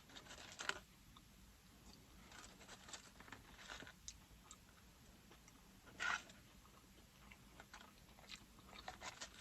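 Faint close-miked chewing of fast food, with scattered soft crunches and wet mouth clicks; one louder crunch comes about six seconds in.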